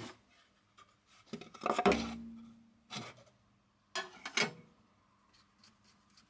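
Handling knocks and clatter at a mini lathe while the chuck is being made ready to come off: a loud knock about two seconds in that rings briefly as a hardboard sheet is laid over the lathe bed, further knocks near three and four seconds, then faint small clicks of hands working at the chuck.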